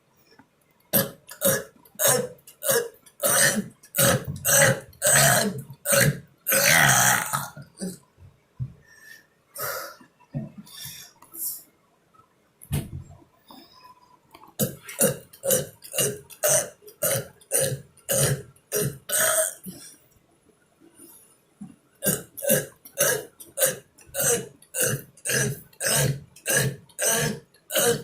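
A man burping over and over in rapid short bursts, several a second, in runs broken by brief pauses. One longer burp comes about seven seconds in.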